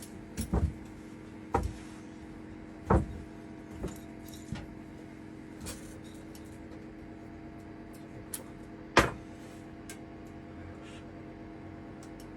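Scattered short knocks and clatters of dishes and food containers being handled and set down, a few seconds apart with the loudest about nine seconds in, over a steady low hum.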